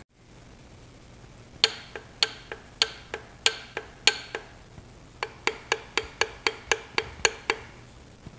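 Hammer tapping on metal: about eight sharp, ringing strikes at an uneven pace, a short pause, then about ten quicker, even strikes at two to three a second.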